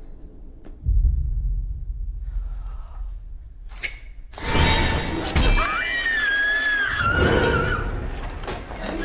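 Horror-film jump scare: a low rumbling drone, then about halfway through a sudden loud crashing sting, over which a woman gives a high, wavering scream lasting about two seconds.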